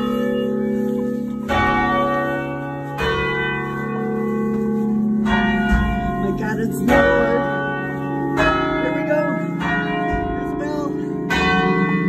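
Church bells in the tower, heard up close and loud, playing a tune. A new bell is struck about every second and a half at a changing pitch, and each note rings on under the next.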